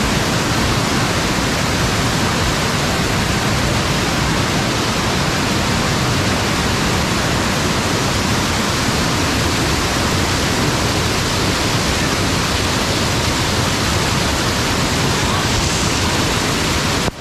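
Waterfall: a steady, loud rush of falling water, even throughout and cutting off abruptly at the very end.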